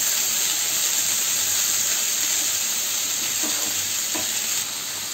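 Vegetables (broccoli, baby corn, sweet corn and bell peppers) sizzling steadily as they stir-fry in oil in a pan, turned with a wooden spatula.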